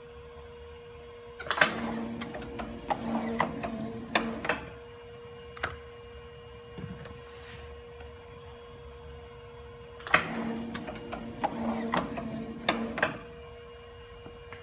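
Pad printing machine running two print cycles on basketballs, about eight seconds apart. Each cycle is about three seconds of mechanical whirring and clatter that starts and ends with a sharp click, over a steady machine hum.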